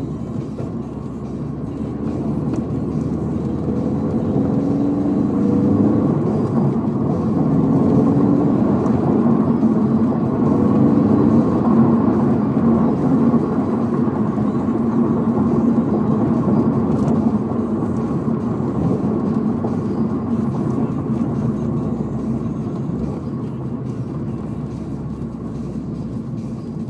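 Toyota 86's FA20 flat-four boxer engine, breathing through an unequal-length header and resonated full exhaust, heard from inside the cabin with a low rumble. It pulls up through the gears, growing louder for the first several seconds, then eases off as the car slows.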